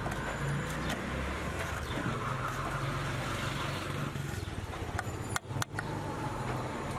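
Cotton candy machine running, its spinning head giving a steady low hum and whir while a metal rod stirs the sugar inside it, with a few sharp clicks of the rod against the metal head.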